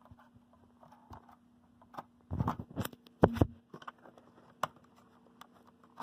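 Plastic clicks and scraping as the candela selector slider on a Gentex Commander 3 horn strobe is squeezed and slid from 15 to 110, with a cluster of louder knocks about two and a half to three and a half seconds in. A faint steady hum runs underneath.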